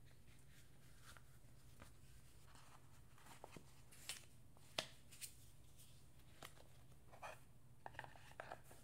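Faint handling noise of jewellery packaging: soft clicks, taps and light rustles as cardboard box, paper booklets and the cloth dust bag are moved. The sharpest click comes about five seconds in, and a quick run of light taps follows near the end, over a low steady hum.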